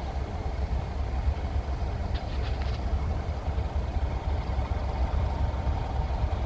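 Diesel locomotive's engine running steadily with a low rumble as the locomotive moves slowly along the track.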